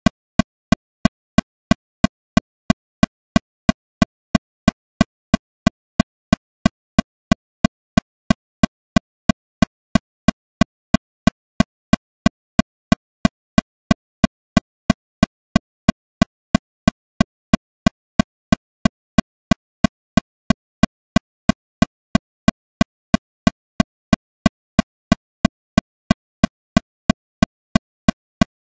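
Metronome clicking steadily at 182 beats per minute, about three evenly spaced, identical short clicks a second with silence between them.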